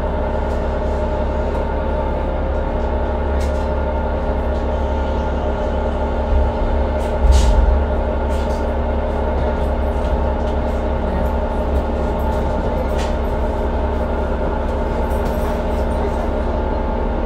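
Inside a 2012 New Flyer C40LF transit bus standing still, its Cummins Westport ISL G natural-gas engine idling with a steady hum and low rumble. Scattered light clicks, and a short thump and hiss about seven seconds in.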